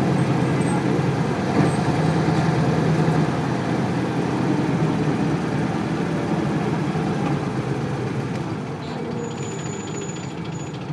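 Isuzu Cubic bus's 8PE1 V8 diesel engine and running noise heard from inside the bus, a dense low rumble that gets gradually quieter over the last several seconds.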